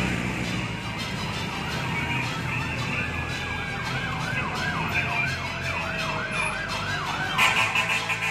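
Fire truck sirens approaching. A slow rising-and-falling wail changes to a fast yelp of about two sweeps a second, over the low rumble of traffic, with a louder pulsing burst near the end.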